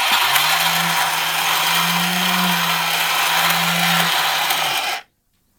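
Haynes model combustion engine kit running on its small electric motor, which turns the camshaft and drives the plastic pistons: a steady mechanical whir over a low hum, cutting off suddenly after about five seconds.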